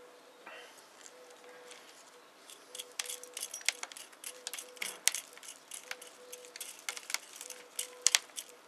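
Fingers working through a ficus root ball and its soil, making dry crackling and rustling with many sharp little clicks. The clicks start about two and a half seconds in and are loudest around the middle and near the end.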